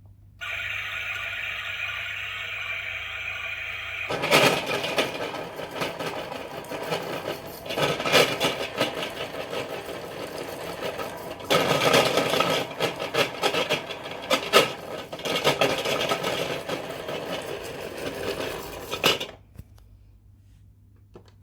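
Toy dishwasher running a wash cycle: a steady tone for about four seconds, then a loud rushing noise full of clatter that stops abruptly near the end.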